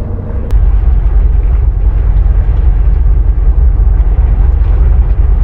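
Wind buffeting the microphone: a loud, unsteady low rumble that starts abruptly about half a second in.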